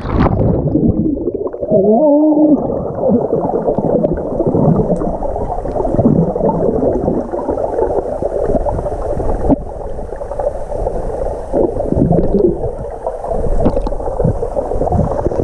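Muffled underwater sound picked up by a submerged waterproof GoPro in a swimming pool: water churning and gurgling around a swimmer, dull and heavy with almost no high end.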